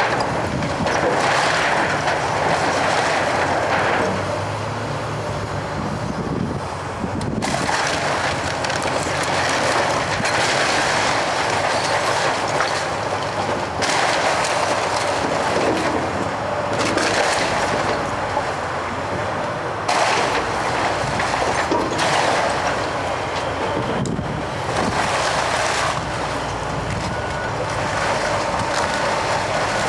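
Komatsu hydraulic excavator running as its bucket tears into the house, with wood and brick debris breaking and falling. The noise is dense and continuous, and it shifts abruptly every few seconds.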